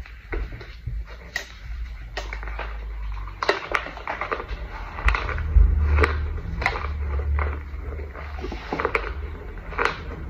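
Close-up chewing of a mouthful of compressed powder brick and scented powder: irregular soft crunches and crackles, a few a second, over a low rumble.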